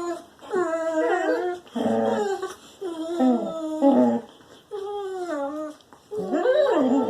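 A dog making a run of drawn-out whining calls, about six in a row, each bending up and down in pitch.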